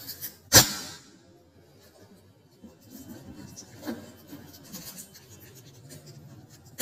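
Cardboard box being torn and pulled open by hand: one sharp, loud snap about half a second in, then soft rubbing and rustling of the cardboard flaps and plastic wrap.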